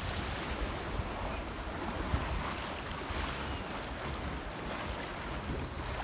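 Choppy sea waves sloshing and splashing, with wind buffeting the microphone in uneven low rumbles.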